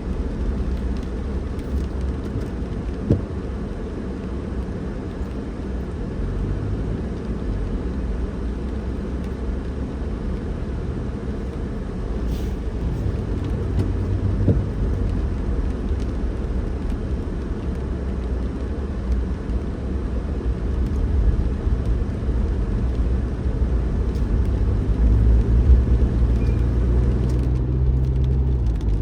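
Steady low rumble of a car driving: engine and tyre road noise, a little louder near the end, with a couple of short knocks along the way.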